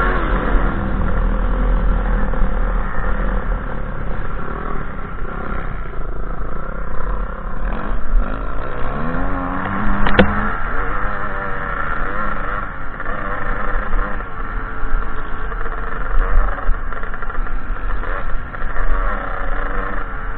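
2007 KTM 300 XC two-stroke dirt bike engine revving up and down under race throttle, with wind on the helmet-mounted microphone. The revs climb in one long glide around the middle, and a single sharp knock comes about halfway through.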